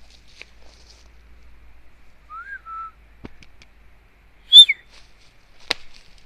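A person whistling for a dog: a soft note that rises and then holds, then about two seconds later a loud, sharp whistle sliding down in pitch. Two sharp clicks fall between and after them.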